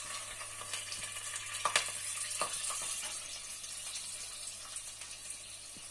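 A batter-coated prawn sizzling in hot sunflower oil, the hiss starting as it drops in and slowly weakening, with a few light clicks partway through.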